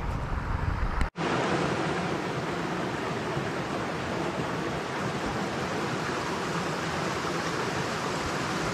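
Small woodland stream running over a little rocky cascade: a steady, even rush of water. About a second in, a brief dropout breaks the sound, and a low rumble before it gives way to the even rush.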